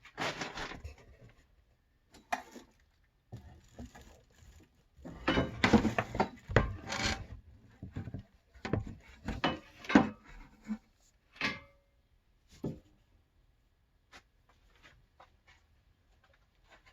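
A filled worm bin being handled and slid onto a shelf: irregular scraping and rubbing with knocks, busiest in the middle, then a few light clicks near the end.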